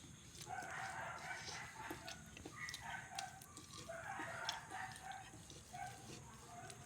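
Chickens calling, with drawn-out rooster-like crows recurring every second or two, and faint scattered clicks.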